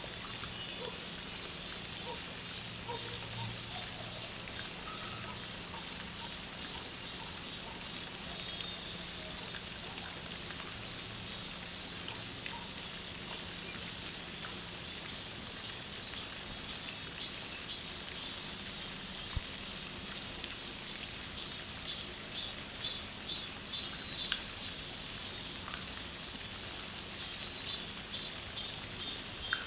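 Summer insect chorus: a steady high-pitched buzz with rows of rapid, evenly repeating pulsed calls, strongest in the second half, over a faint low hum.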